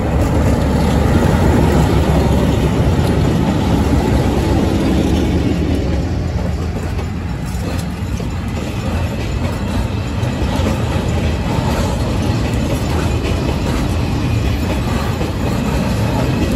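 Freight train of scrap wagons rolling past: a loud, continuous rumble of wheels on the rails.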